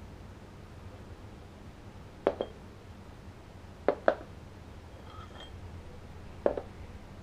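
Parts of a Fenix TK75 flashlight being handled and set down on a wooden table: a few light knocks and clinks, in quick pairs about two and four seconds in and once more near the end, as the tail cap comes off and the plastic battery carrier is drawn out of the tube.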